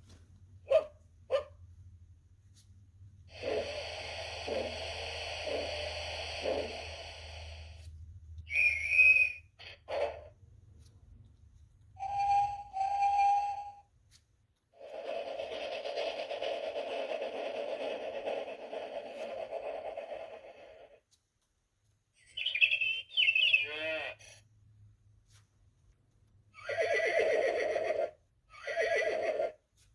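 A series of short recorded sound effects from a children's button sound book, played one after another with short gaps: a steam train chuffing, whistle toots and a horse whinnying.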